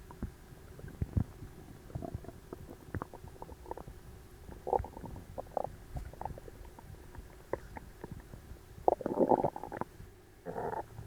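A human stomach gurgling while digesting an overly large meal: scattered short pops and gurgles, with a longer bubbling gurgle, the loudest, about nine seconds in and another near the end.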